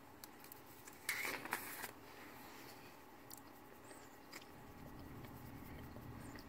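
Onion powder shaken from a plastic spice shaker over a pot: a brief shaking rustle about a second in, then a few faint taps.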